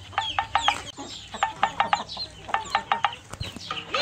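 Chickens clucking: quick runs of short, sharp clucks.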